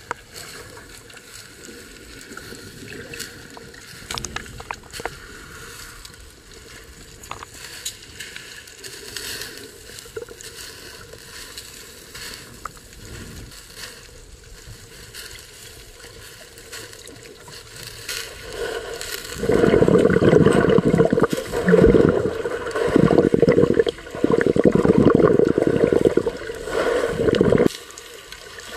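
Water heard through a submerged camera: muffled, with faint scattered clicks and crackles. About two-thirds of the way in, much louder muffled water rushing and sloshing begins, coming in several surges for about eight seconds before cutting off abruptly near the end.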